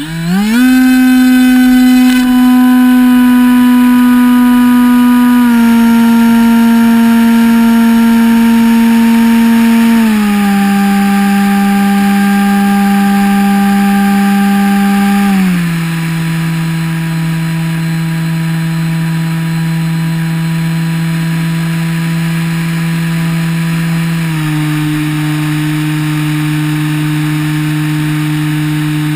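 Electric motor and pusher propeller of an EasyStar 2 RC foam plane, close to the onboard camera: a loud, steady whine that rises sharply right at the start as the plane is launched. The pitch then drops in four clear steps as the throttle is eased back, about five, ten, fifteen and twenty-four seconds in.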